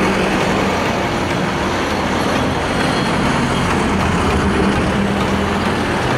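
Steady motor-vehicle noise: an engine running amid road traffic, with no distinct events.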